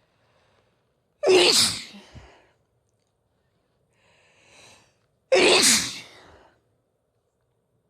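A woman sneezing twice, two loud sneezes about four seconds apart, with a breathy intake before the second. The sneezes are brought on by sniffing chhikni, a sneezing powder.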